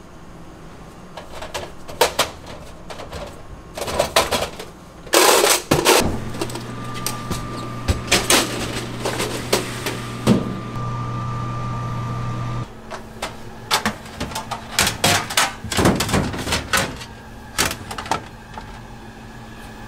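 Metal baking pans and steel trays clattering and knocking against stainless-steel shelves and worktop, with a cabinet door being opened. A steady electric hum runs for about six seconds in the middle, then stops abruptly.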